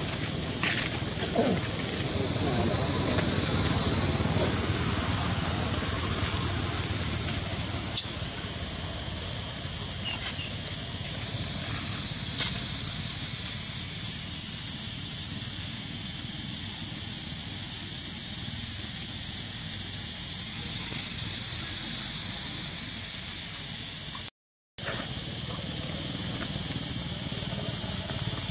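Insect chorus: a steady, high-pitched buzzing drone that shifts slightly in pitch every several seconds and cuts out briefly near the end.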